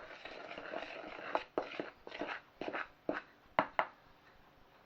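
Dry flour, baking powder and sweetener being stirred in a mixing bowl: a run of short scraping strokes, about two a second, with a few sharp clicks of the utensil against the bowl.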